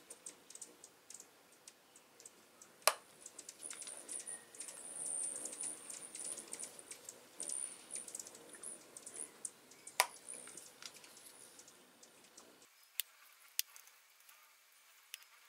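Faint clicks and taps of a hard plastic hummingbird feeder base being handled and pierced with a hot soldering iron to enlarge its feeding holes, with two sharper clicks about 3 and 10 seconds in and a thin high hiss through the middle.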